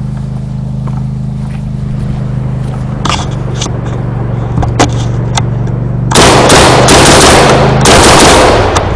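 Automatic gunfire: a few single shots, then two long full-auto machine-gun bursts, the first starting about six seconds in and the second just before the end.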